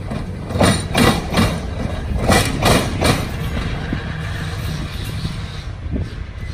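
Steel wheels of a TECO Line streetcar clunking over a rail crossing: two quick groups of three loud knocks, over the car's steady low rumble.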